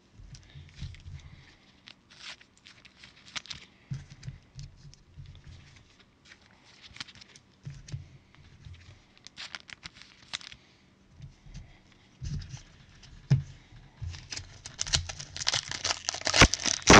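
A foil trading-card pack torn open and crinkled by hands in nitrile gloves, growing dense and loudest near the end. Before that, scattered light rustles and clicks of card handling.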